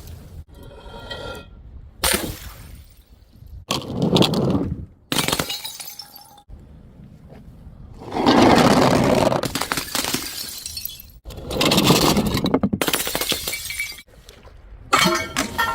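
Glass bottles smashing one after another, about six separate crashes of shattering glass, some with pieces ringing and clinking afterwards; the longest and loudest comes about eight seconds in.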